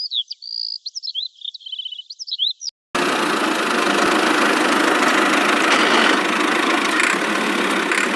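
Quick high-pitched chirps and squeaky whistles for about two and a half seconds. Then, about three seconds in, a loud steady engine noise cuts in suddenly.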